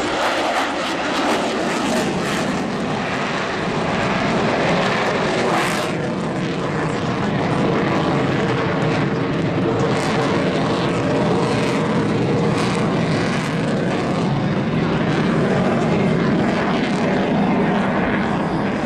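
Airplane engine running steadily as the aircraft flies a display.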